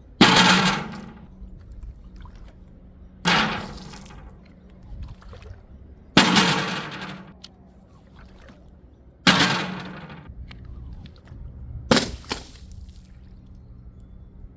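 Glass containers dropped one after another and shattering, five smashes about three seconds apart, each followed by a second of glass scattering and liquid splashing.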